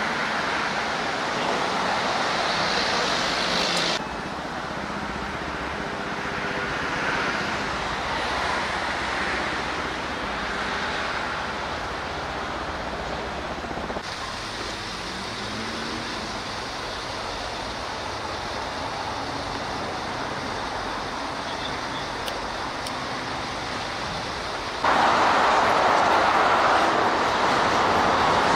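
Steady highway traffic noise, a continuous hiss of tyres and engines. It changes abruptly in level about four, fourteen and twenty-five seconds in, and is loudest in the last few seconds.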